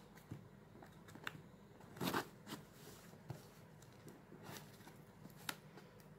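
Faint scraping and clicking of a box cutter working through packing tape on a cardboard box, with a louder brief scrape about two seconds in.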